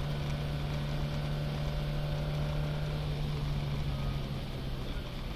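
BMW 02 race car's four-cylinder engine running under load, heard from inside the cabin. The note holds steady, then its pitch drops a little about three and a half seconds in.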